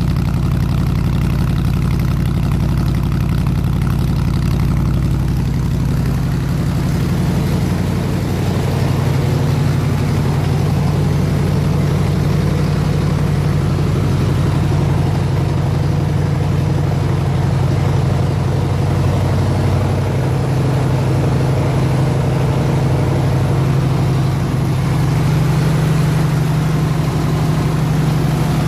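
302 V8 engine of an engine-driven air compressor idling steadily, warmed up to operating temperature.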